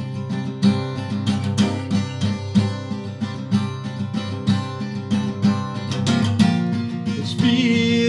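Steel-string acoustic guitar strummed in a steady, even rhythm. A man's voice starts singing over it near the end.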